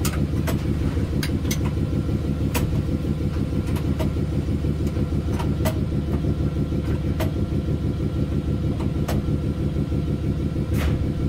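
Steady hum of an EF63 electric locomotive's onboard machinery running in the cab, with about ten sharp, irregular clicks of cab switches and control handles being worked during the pre-departure switch check.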